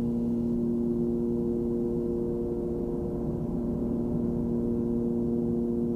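Twin-engine Cessna 340's piston engines and propellers droning steadily in cruise, an even hum with a fixed pitch over a low rumble.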